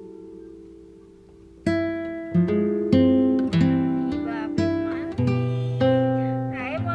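Background acoustic guitar music: a chord fades out, then from about a second and a half in, a run of plucked notes and chords.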